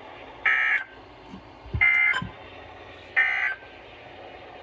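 Three short bursts of Emergency Alert System (SAME) digital data tones, about 1.3 seconds apart: the end-of-message signal that closes a broadcast weather warning.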